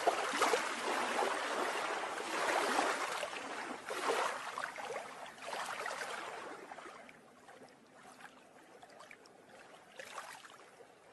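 Flowing, splashing water sound effect, fading out about seven seconds in, with a brief faint swell near the end.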